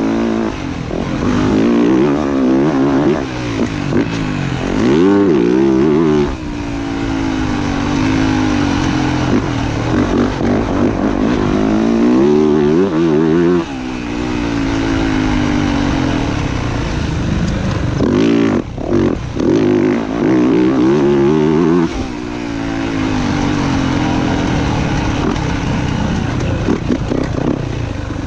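Dirt bike engine ridden hard, its pitch repeatedly climbing as the throttle is held and dropping with each shift or chop of the throttle, with a few quick blips about two-thirds of the way through.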